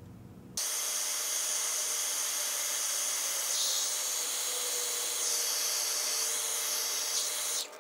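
Electric heat gun blowing hot air, a steady hiss with a faint fan whine, shrinking a heat-shrink crimp connector onto a wire. It starts suddenly about half a second in and cuts off just before the end.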